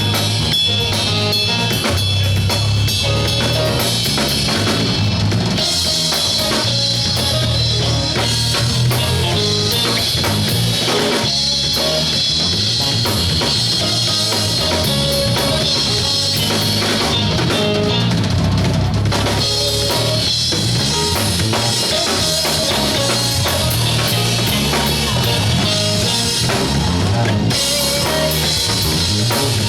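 Live soul band playing, with the drum kit's kick and snare and the bass most prominent.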